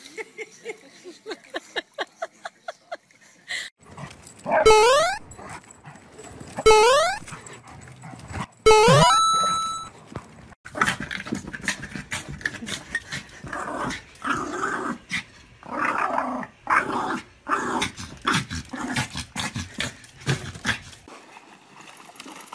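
Dogs vocalising: a quick run of short yips, then three loud rising whines about two seconds apart, then a long stretch of rapid, rough barking and growling that stops near the end.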